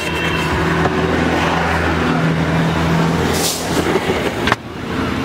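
Street traffic noise: a motor vehicle engine running close by with a steady low hum under general road noise, and a short hiss about three and a half seconds in.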